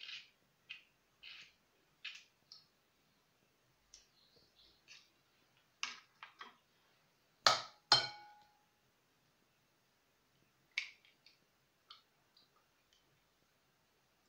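Eggshells clicking and scraping as eggs are cracked and separated by hand over a ceramic bowl, with two sharp knocks against the bowl half a second apart about halfway through.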